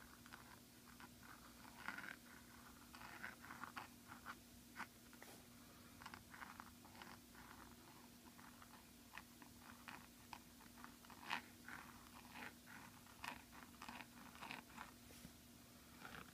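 Faint, irregular scratching of a Brause Rose flexible steel nib on a Jinhao X450 pen dragging across paper, one short scratch per pen stroke as script is written.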